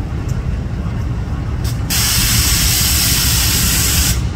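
Diesel-electric freight locomotive engine running with a low, steady rumble. About two seconds in, a loud hiss of escaping compressed air starts suddenly and cuts off about two seconds later.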